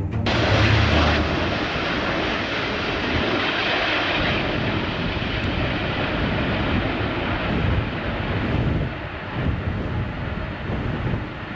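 Airbus A380's four Rolls-Royce Trent 900 turbofan engines, a loud steady jet rush, strongest in its first few seconds and easing a little near the end.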